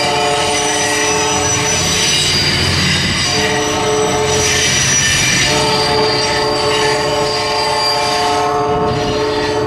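Passing freight-style train, the Canadian Pacific Holiday Train. A locomotive horn sounds a chord in long blasts, with a short break and a longer break about halfway through. Under it are the rumble of the rolling cars and a thin, high wheel squeal.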